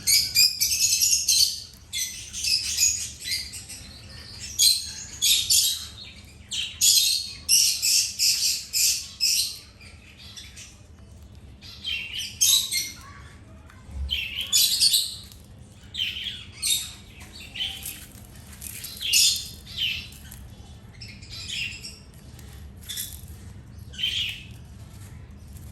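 Birds chirping in quick runs of high calls, thick and busy for about the first ten seconds, then in shorter, sparser bursts.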